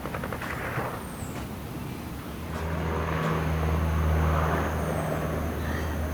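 A distant engine's low, steady drone that comes in about two and a half seconds in, swells and then holds. It sounds like a passing vehicle or aircraft.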